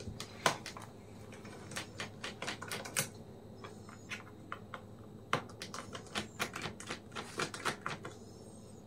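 Irregular small clicks and taps of a screwdriver working out the screws that hold a laptop's hard drive.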